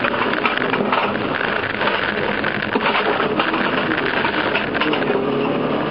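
Inside a rally car's cabin at speed: the engine running under load beneath a constant dense clatter of rattling loose items, such as drink cans, and road noise.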